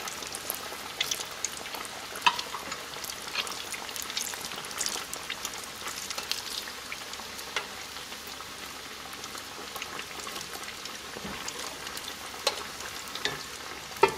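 Empanadas deep-frying in hot canola oil: a steady sizzle with crackling pops, broken by a few sharp clicks of metal tongs and a slotted spoon against the pot as they are turned.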